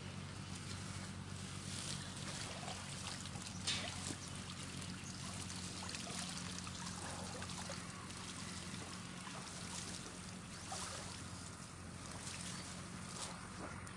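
Water trickling and dripping as a wet mesh fish trap is hauled out of a pond by hand, with scattered small knocks and rustles of the netting.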